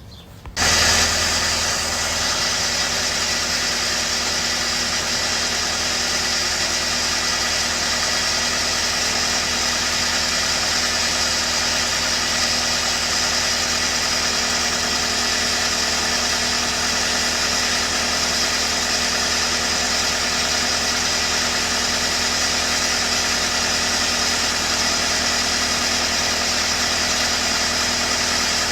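Lincoln SAM 400 welder's engine running steadily at a constant speed, coming in abruptly about half a second in.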